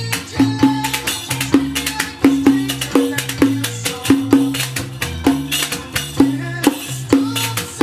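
Riq, a jingled hand frame drum, played in quick rhythmic patterns of skin strikes and jingle shakes, over a recorded pop song with a sustained bass line.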